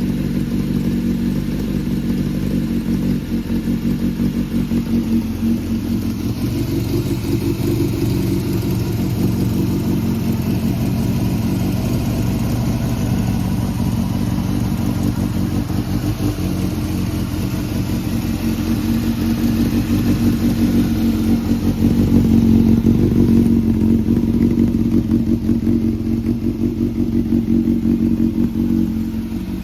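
Honda CBR400F's air-cooled inline-four engine running steadily, a little louder for several seconds past the middle, with no odd noises according to the seller.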